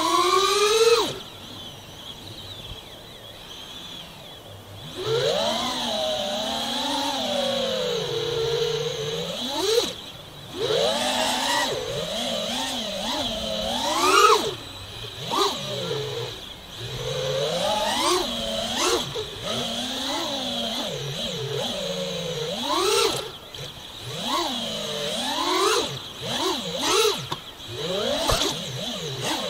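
FPV quadcopter's brushless motors whining. The pitch keeps swooping up and down as the throttle is punched and chopped through flips and dives. The motors are quieter for a few seconds early on, then rise sharply about 14 seconds in.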